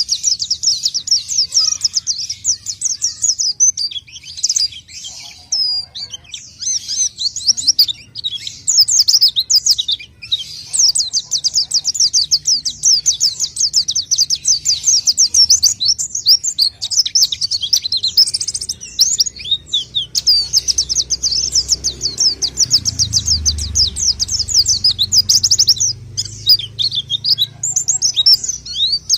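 White-eye (pleci) singing a long, fast, high-pitched twittering song of rapid chirps and trills, broken by a few short pauses.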